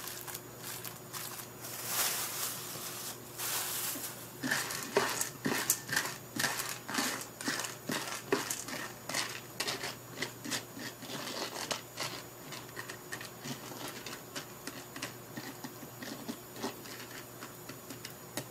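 Unpopped popcorn kernels in oil being stirred with a plastic rice paddle in a non-stick cooker pot, rattling and scraping in irregular clicks and rustles, before any popping has begun.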